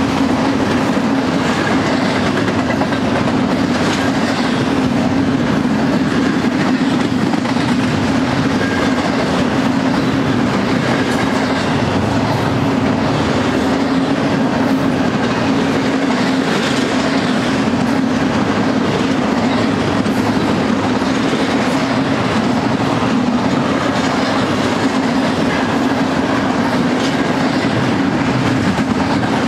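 Double-stack intermodal freight train's well cars rolling past: a steady, loud rumble and clatter of steel wheels on the rails.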